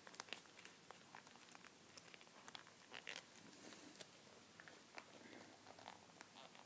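Near silence with faint, scattered small clicks and rustles of a leather watch strap being unbuckled by hand.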